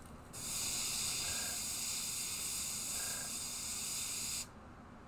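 Gravity-feed airbrush spraying, one steady hiss lasting about four seconds that starts just after the opening and cuts off sharply.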